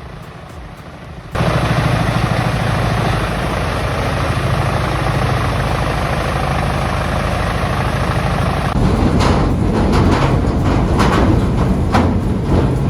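Large diesel-powered wood chipper running hard, a heavy engine under load that starts in sharply about a second in. From about nine seconds in, sharp cracks and snaps of wood breaking in the chipper sound over it.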